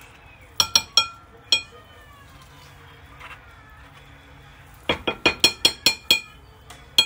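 Metal spoon clinking against a ceramic bowl as scooped avocado flesh is knocked off it. There are four ringing taps in the first second and a half, then a quick run of about eight taps about five seconds in, and two more at the end.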